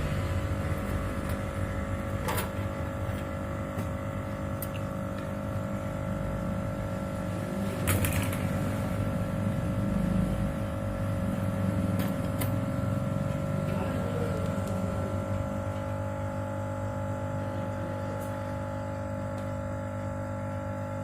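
Hot-air rework gun blowing steadily with a motor hum while it reheats the keypad IC on a phone's circuit board, a reflow meant to cure a keypad that does not respond. A few light clicks come about 2, 8 and 12 seconds in.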